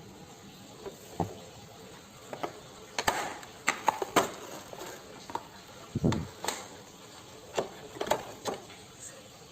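An irregular run of light knocks and clicks, as of hard objects being handled and set down, busiest in the middle stretch.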